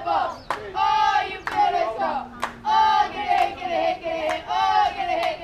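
Girls' softball team chanting a rhythmic cheer in unison, high voices in short repeated phrases, with sharp claps about once a second.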